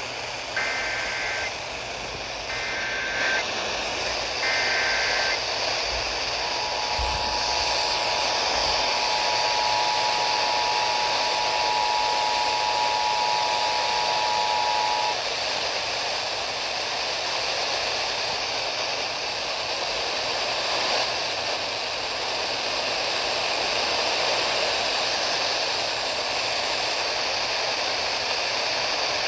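Emergency Alert System alert received over weather radio: three short bursts of warbling digital header data a second apart, then the two-tone EAS attention signal held for about nine seconds, announcing a severe thunderstorm warning. Steady radio static hiss runs underneath and carries on after the tones stop.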